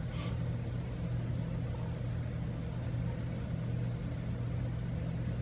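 Steady low hum of an electric motor or appliance running.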